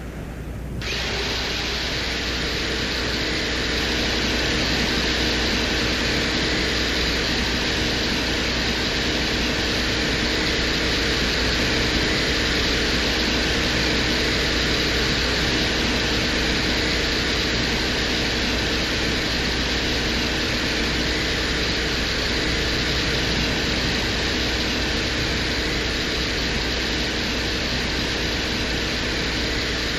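Venera 14 lander's microphone recording from the surface of Venus: steady static-like hiss, the white noise and gentle blow of the Venusian wind that the microphone was there to pick up for measuring wind speed. A low hum and a few faint steady tones sit under the hiss, which grows louder and brighter about a second in.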